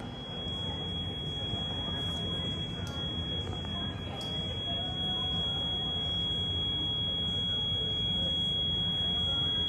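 Airliner noise: a steady high-pitched whine over a low rumble, the rumble growing louder about halfway through.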